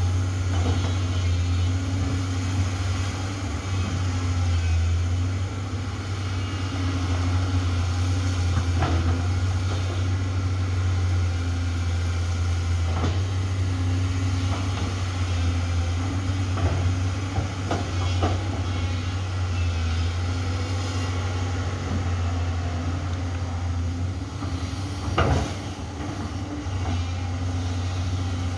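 Amphibious swamp excavator's diesel engine running steadily under work, with scattered knocks and clacks from the machine. The sharpest knock comes about 25 seconds in.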